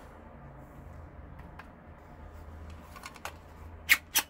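Clicks of a Glock 18 replica pistol lighter being handled: a few faint clicks, then two sharp, loud clicks a quarter second apart near the end.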